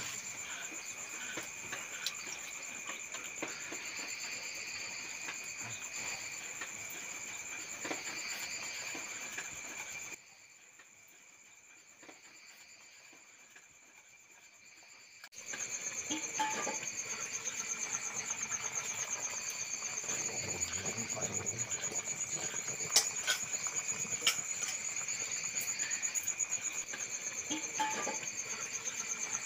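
Night chorus of crickets chirping steadily, several insects at different pitches, with a few sharp crackles from the wood fire. The chorus drops to near silence about ten seconds in and returns about five seconds later.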